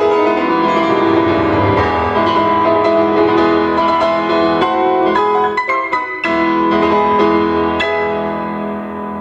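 Solo piano playing a march, heard through the restored Revox model 40 valve amplifier and its loudspeaker as a listening test. It sounds clean, with no noticeable noise or distortion. The music gets a little quieter near the end.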